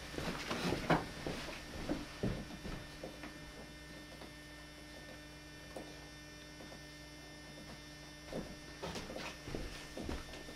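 Steady electrical mains hum in a quiet room, with a few soft knocks and bumps in the first second and again near the end.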